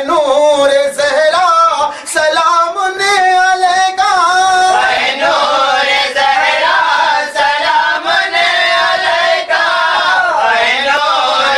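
A devotional Urdu salam sung in a long melodic line by a lead voice, with a fuller chorus of voices joining about five seconds in.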